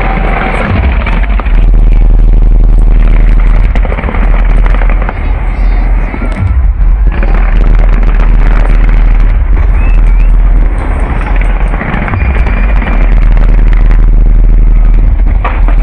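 Aerial fireworks bursting in dense, continuous volleys, loud enough to push the recording near its limit.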